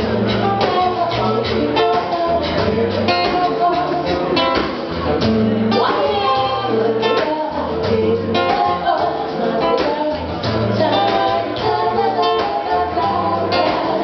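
Live acoustic performance: women's voices singing over a strummed and plucked acoustic guitar.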